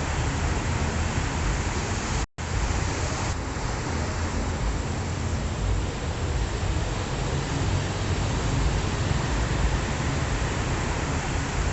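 Ocean waves washing onto a shore as a steady, even rush of surf. It is broken by one short cut to silence about two seconds in.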